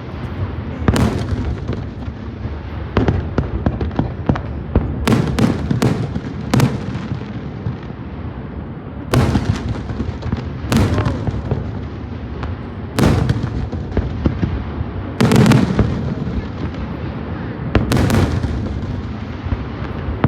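Fireworks display: aerial shells bursting in a string of sharp bangs at irregular intervals, about a dozen over twenty seconds, some in quick doubles and triples, each trailing off into a rumbling echo, over a steady low rumble of more distant fireworks.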